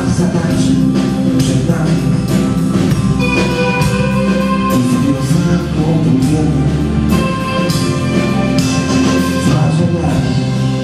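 Live rock band playing the instrumental close of a song: drum kit with regular cymbal strokes under bass, electric guitars and keyboard holding sustained chords.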